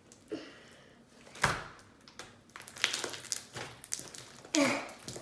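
Slime mixed with play-doh being squeezed and pulled in the hands: scattered sticky clicks and pops, with one sharp pop about a second and a half in.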